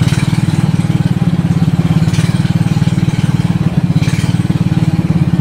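Inboard engine of a small wooden river boat (klotok) running steadily under way, with an even, rapid pulse.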